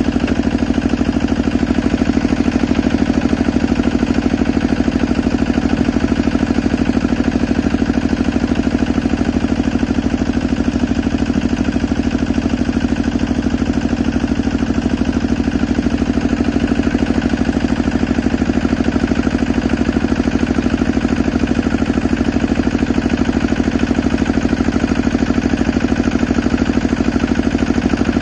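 Small engine running steadily at a constant speed, powering the well-drilling rig as it circulates muddy water down the borehole.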